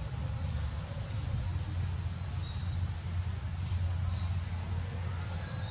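Outdoor ambience: a steady low rumble, with short high chirps twice, about two seconds in and near the end.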